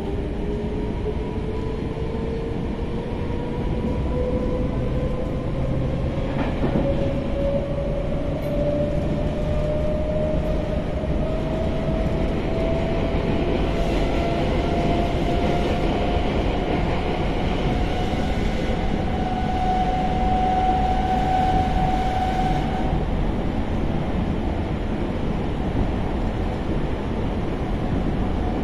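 Inside an MI84 RER B electric train on the move: the traction motors whine, the pitch rising slowly and steadily as the train accelerates, then fading out about 23 seconds in as power is shut off. A steady rumble of wheels on rails runs underneath.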